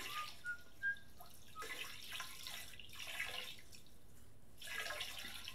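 Water dripping in a small, echoing restroom: a few short pitched drips in the first second and a half, then soft splashing hiss.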